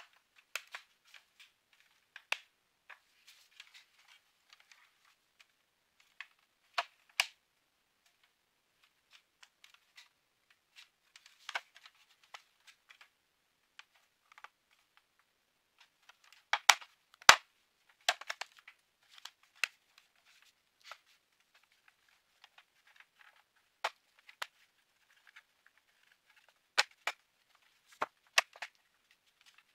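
Plastic projector housing being handled during reassembly: irregular sharp clicks and light knocks as panels and parts are pressed and snapped into place, with a louder run of clicks a little past halfway and again near the end.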